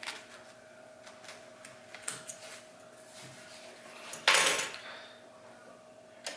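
Small metallic clicks and clinks of hands working at an all-metal sewing machine, with one loud brief rustle about four seconds in, over a faint steady hum. The machine is not stitching.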